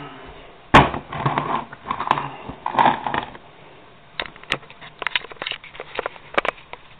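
Kitchen items being handled while getting set to jar jam. There is a sharp knock about a second in, then a couple of seconds of clattering and rustling, then a string of light clicks and taps.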